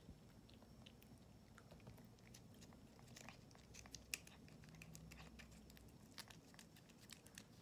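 Faint, quick, irregular wet clicks of a kitten licking and lapping treat paste from the tip of a squeeze tube.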